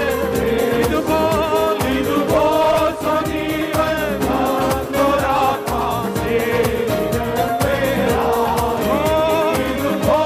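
Malayalam Christian worship song sung live by a worship team into microphones, voices with vibrato over band accompaniment with a steady beat.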